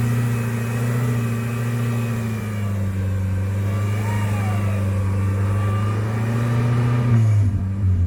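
Off-road 4x4's engine running under load at steady high revs, easing off about seven seconds in.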